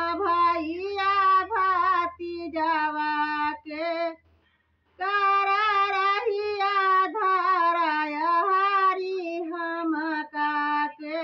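A woman singing a bhajan (Hindi devotional folk song) solo and unaccompanied, in long held, wavering notes, breaking off for about a second about four seconds in before carrying on.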